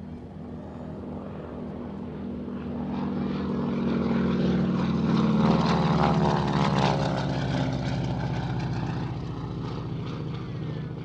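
Vintage single-engine propeller airplane making a low fly-by: its piston engine grows louder, peaks about halfway through, then fades as it moves away, the engine note dropping in pitch as it passes.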